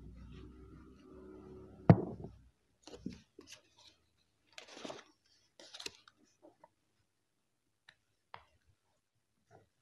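Stiff coloured paper being handled and pressed together: short rustling, crinkling bursts, with one sharp tap about two seconds in and a few light ticks near the end. A low hum runs through the first two seconds or so.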